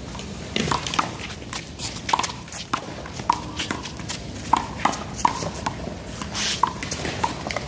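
A one-wall handball rally: a small rubber ball slapped by hand and smacking off the wall and pavement in quick, irregular sharp knocks, with footsteps on the court between hits.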